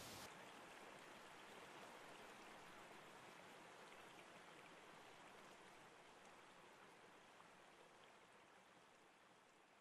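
Faint, even rushing of running water, like a stream, fading slowly away.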